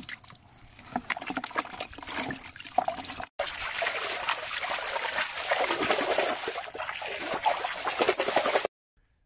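Water splashing and trickling: scattered splashes and clicks for about three seconds, then after a brief break a denser, steady rush of water sound that stops abruptly near the end.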